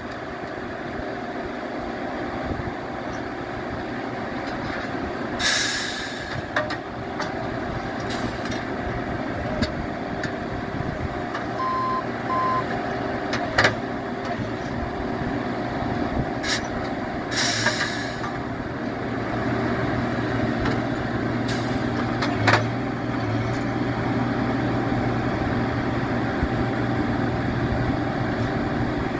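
Nordco TRIPP tie machine running steadily at work on the track. Four short hisses of air and a few sharp knocks break over it, and two short beeps come about twelve seconds in.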